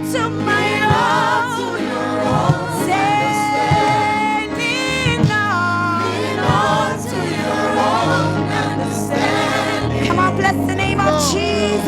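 Gospel choir singing with vibrato over a band's steady bass notes.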